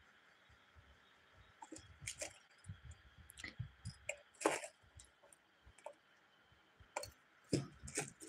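Small crystal stones clicking and knocking against each other as they are sorted through by hand, in faint, irregular clicks.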